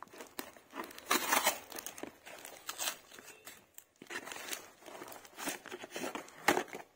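A taped cardboard parcel being torn open by hand: irregular ripping and crinkling of packing tape and cardboard, with a few sharper rips about a second in and near the end.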